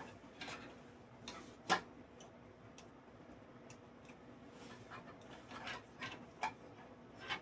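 Scattered small plastic clicks and taps of SATA cables being handled and plugged into their connectors, the sharpest about two seconds in.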